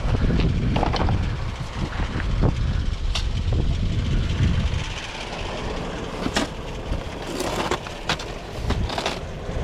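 Vehicle driving with a load of scrap metal, a low road rumble that is heavier for the first half and then eases, with scattered clanks and rattles from the load.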